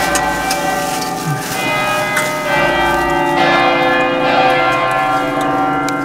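Several large church bells of York Minster ringing, struck one after another, their tones hanging and overlapping.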